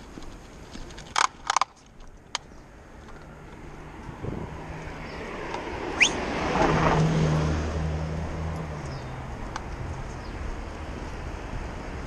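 A car driving past, its engine hum and tyre noise swelling to a peak about seven seconds in and then fading away. A few sharp clicks sound near the start.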